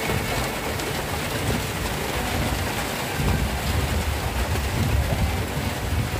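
Heavy rain falling steadily as an even hiss. From about halfway through, a stronger low rumble joins it.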